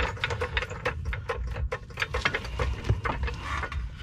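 Irregular light metallic clicks and taps as parts of a car's front suspension knuckle and hub are handled and fitted by hand, over a low steady hum.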